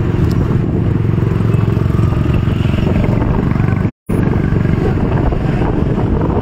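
A column of small commuter motorcycles riding together, their engines running steadily up close. The sound cuts out for a moment about four seconds in.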